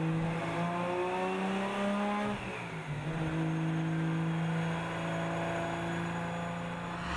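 Race-car engine sound effect running at a steady pitch, with a drop in pitch about two and a half seconds in, like a gear change.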